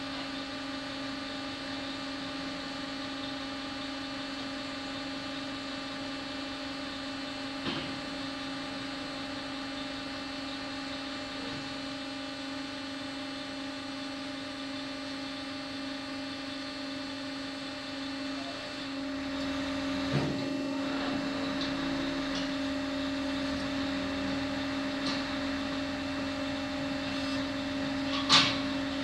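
Machinery running with a steady hum that gets a little louder about two-thirds of the way in, with a few short sharp knocks, the loudest near the end.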